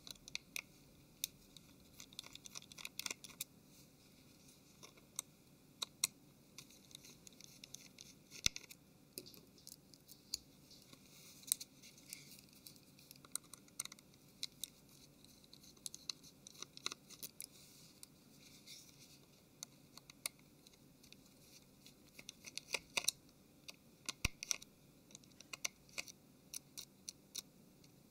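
Small precision Phillips screwdriver undoing the tiny screws of a Samsung Galaxy Ace's plastic rear housing: faint, irregular clicks and scratches of the bit working in the screw heads and of the phone being handled.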